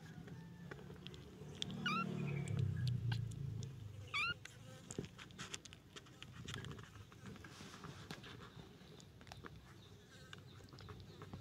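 Very young kittens mewing, with two short high-pitched mews about two and four seconds in, among light scratching and small clicks as they move about.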